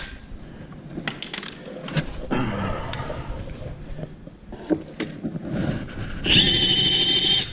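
Tools clinking and clattering as they are handled, then a cordless drill with a spade bit runs for about a second near the end, a loud steady high whine that starts and stops abruptly.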